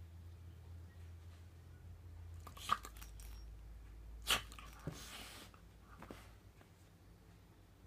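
Border collie puppy pawing and rolling on a coarse carpet: two sharp taps, the louder about four seconds in, followed by about a second of soft rustling and a few faint ticks.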